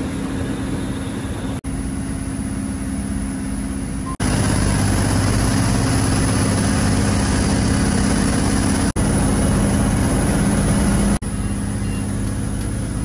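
Fishing trawler's inboard engine running steadily, a low drone with a hum of steady tones. It breaks off briefly four times and is louder through the middle stretch.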